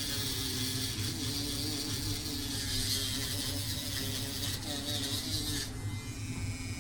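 A small electric tool running: a steady hiss with a motor hum under it, cutting off suddenly near the end.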